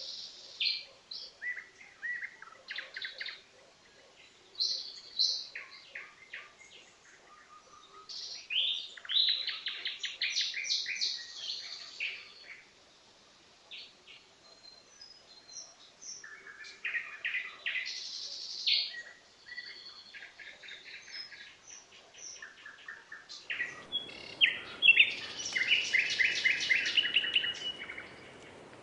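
Nightingale singing: varied phrases of fast repeated notes and trills, separated by short pauses. A steady background hiss comes in under the song about three-quarters of the way through.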